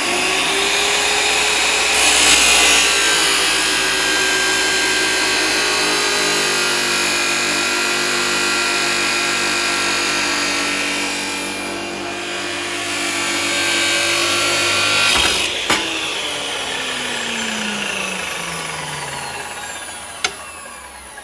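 Makita abrasive cut-off saw running up to speed and grinding through a solid steel bar, a harsh steady whine with the cutting noise over it. About 15 seconds in the motor is switched off and winds down with a falling whine.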